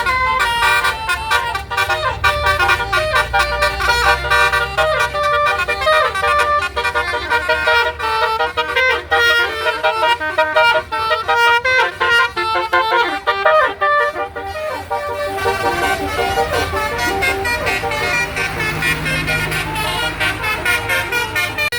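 Basuri multi-tone 'telolet' bus horn playing a fast melody of stepping tones.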